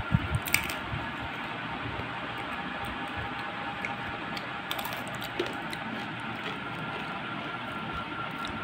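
A few sharp crinkles and clicks of a plastic snack bag being handled in the first half-second, then a steady background hum with a few faint ticks.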